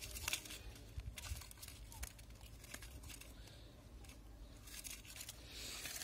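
Faint rustling and a few scattered light clicks as the netted wooden box of goldfinches is handled.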